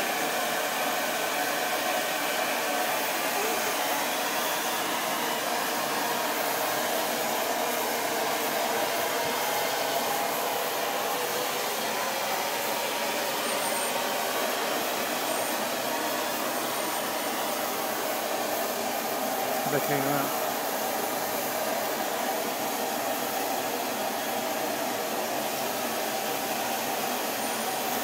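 Miniature steam locomotive venting steam in a steady, continuous hiss, with a short knock about twenty seconds in.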